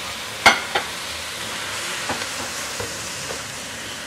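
Garlic chive flowers, squid and pickled mustard greens sizzling in a wok as they are stir-fried. A sharp knock of the utensil against the pan comes about half a second in, then a smaller one, and a few light taps and scrapes follow.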